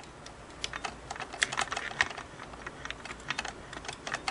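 Light, irregular metal clicks and taps, several a second, from a screwdriver and steel parts as the set screw on the take-up lever crank of a Singer 403A sewing machine is tightened.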